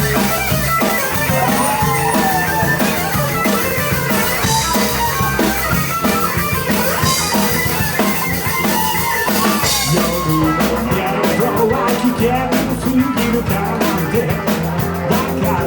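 Live rock band playing an instrumental intro: an electric guitar lead with bent notes over bass and drum kit. From about ten seconds in, the drums settle into a steady driving beat.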